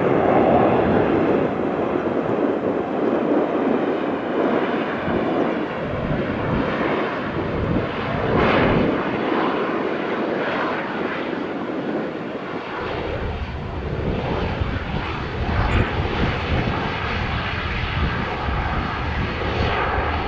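Jet airliner engines running: a steady rushing noise, with a deep low rumble coming in about two-thirds of the way through.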